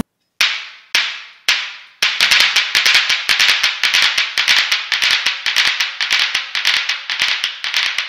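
Steel balls of a Newton's cradle clacking together. There are three single ringing clacks about half a second apart, then from about two seconds in a fast, continuous rattle of many clacks.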